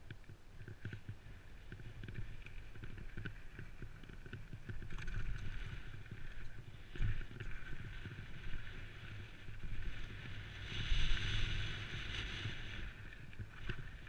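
Downhill mountain bike running fast over a loose slate-and-gravel trail: a steady rumble from the tyres on stones, with frequent knocks and rattles from the bike, heard through a helmet-mounted camera. About eleven seconds in, a louder hiss lasts for about two seconds.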